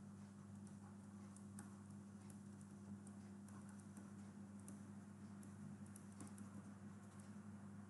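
Faint, irregular ticks and taps of a stylus on a writing tablet as words are handwritten, over a low steady electrical hum.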